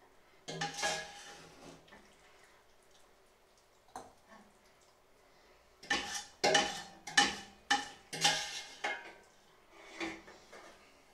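Metal ladle scraping and clinking against the inside of a stainless steel pot, with a slight metallic ring. One scrape comes about half a second in and a light tap a few seconds later, then a quick run of about five scrapes and one more near the end.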